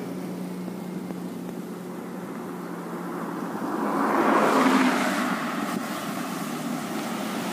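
Road traffic: a vehicle passes close by, its tyre and engine noise swelling to a peak about four and a half seconds in and then fading, over a steady low hum of engines.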